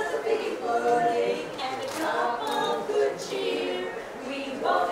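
A choir singing, several voices holding notes together.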